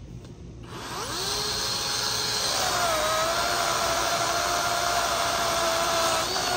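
Skil 40V cordless brushless chainsaw spinning up to a steady whine. About two and a half seconds in, its pitch drops and holds lower while the chain cuts into an overhead branch. Near the end it rises again as it comes free.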